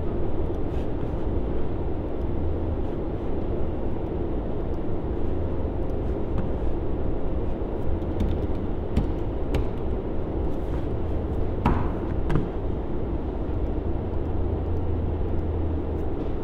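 Steady low rumble of background noise with a faint steady hum, and a few faint scattered clicks.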